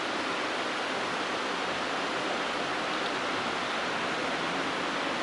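Steady, even hiss with no other sounds standing out.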